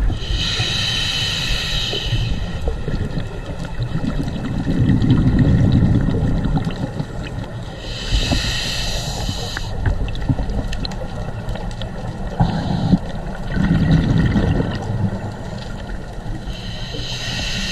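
Scuba diver breathing through a regulator underwater: three hissing inhalations about eight seconds apart, each followed a few seconds later by a low rumble of exhaled bubbles.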